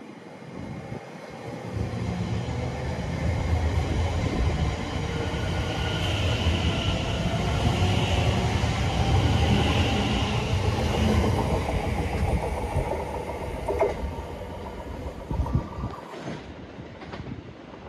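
Train passing through the station: the rumble of wheels on the rails with a high ringing whine builds, peaks about halfway and fades away. A few sharp clicks come near the end.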